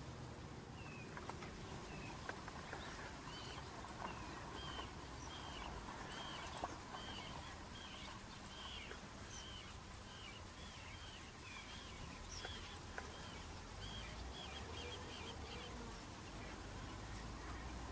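A bird calling over and over, a run of short high chirps two or three a second, over a low background rumble, with a few light clicks.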